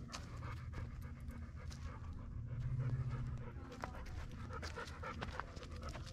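A vizsla dog panting on a hike, with short crunching clicks from steps on the trail.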